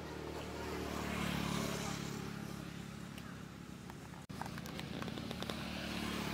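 A motor vehicle's engine humming steadily, swelling over the first two seconds and then easing off. The sound cuts out for an instant about four seconds in.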